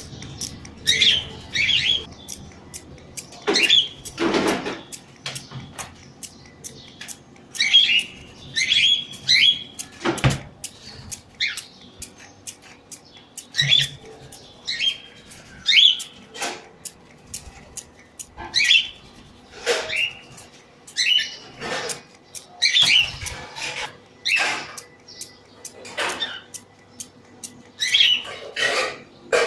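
Pet bird chirping in short calls, over and over, with many sharp clicks in between.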